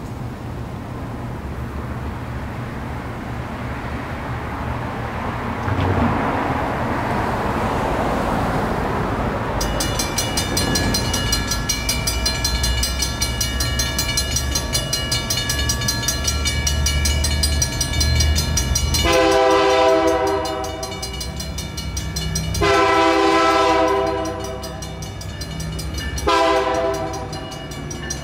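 Crossing signals' mechanical bells start ringing about a third of the way in, a rapid, even clanging that carries on. Over them the approaching train's locomotive horn sounds three times, two long blasts and a short one, the opening of the grade-crossing horn signal.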